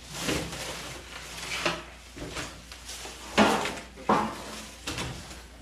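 Parts of a tool cart and tool chest being handled and shifted: irregular clunks and scraping, with two louder knocks about three and a half and four seconds in.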